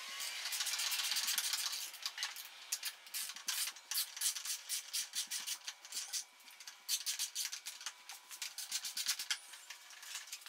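Hands working a motorcycle's plastic side fairing loose: a scraping rub for about the first two seconds, then many irregular light clicks and taps of plastic and fasteners.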